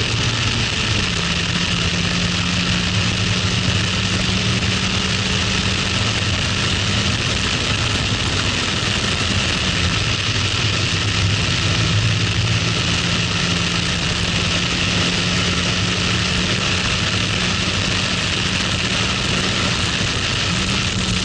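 Toyota MR-S's 1ZZ-FE 1.8-litre four-cylinder on its stock intake and exhaust, running under load at track speed, with a steady rush of wind and road noise from the open cockpit. The engine note holds steady, stepping slightly in pitch about a second in, again around the middle, and near the end.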